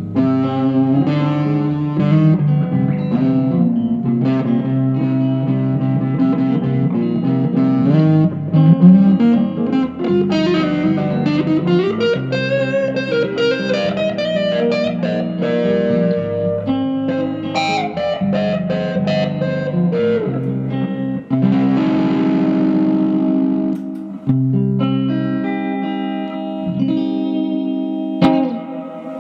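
Electric guitar played through a Vox AC10C1 valve combo amp, picking single-note lines and chords. It ends on a chord that rings and fades away near the end.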